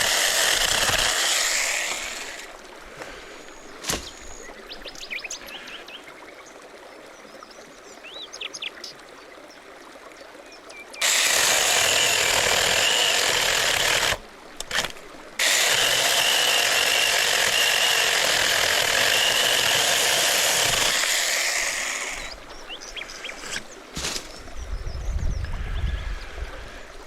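A small electric power tool running in long bursts with a steady whine, stopping and starting abruptly. Birds chirp in the pauses.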